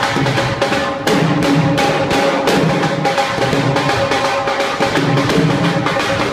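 Bhangra music driven by fast, steady dhol drumming, with held melodic tones over the beat.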